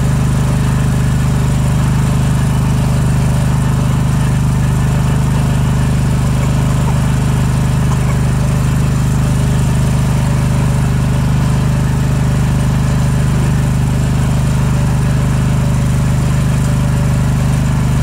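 Riding lawn mower's engine running steadily and loud, its low hum unchanging, heard close up from the driver's seat.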